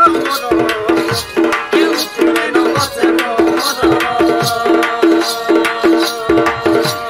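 Indian folk music: hand drums keep a steady rhythm under a short melodic phrase repeated over and over at an even pace.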